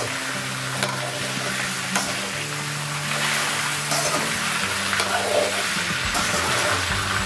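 Sliced potatoes sizzling in hot oil in a kadhai while a slotted spatula stirs and scrapes them. The spatula clicks against the pan a few times.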